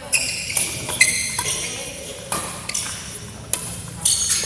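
Badminton shoes squeaking on the court floor in short, high-pitched chirps as players move, with a few sharp clicks of rackets striking the shuttlecock about a second apart.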